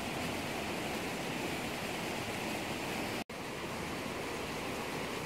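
Steady rush of river water running over rocky shallows, cut off for an instant a little over three seconds in.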